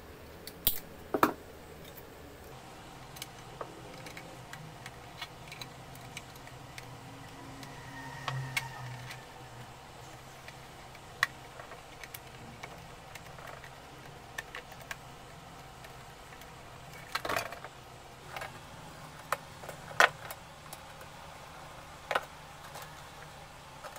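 Scattered clicks and light knocks of a wall fan's plastic back cover, blade and wire guard being handled and fitted back on, with pliers working at the wiring at first.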